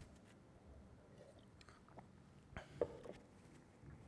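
Faint sipping and swallowing from a mug, picked up close by a cheek-worn headset microphone, with a few small clicks about two and a half seconds in.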